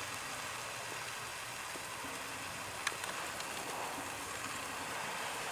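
Chicken breasts sizzling steadily in a pan over a campfire, with a few faint pops.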